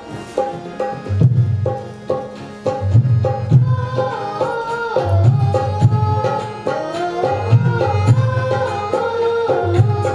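Tabla playing a steady rhythm with deep bass strokes under a keyboard melody. A boy's voice comes in singing a Hindi devotional bhajan about four seconds in.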